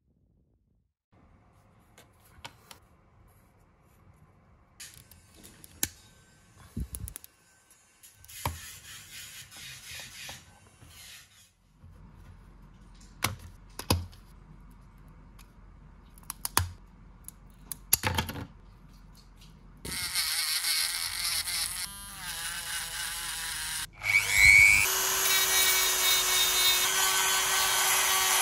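Scattered clicks and knocks of quick-grip bar clamps and a plastic mold being handled, then a handheld rotary tool with a sanding drum running loudly. It stops briefly, spins back up with a rising whine and runs steadily, sanding a thin bentwood ring.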